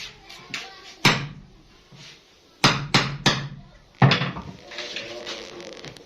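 Sharp knocks: one about a second in, a quick run of three in the middle, and a loud one about four seconds in.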